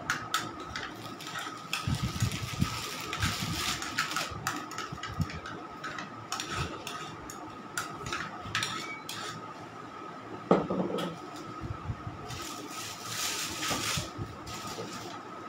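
A spatula scraping and tapping against a small bowl of cream, with scattered clicks and a louder knock about ten seconds in. A plastic piping bag rustles near the end.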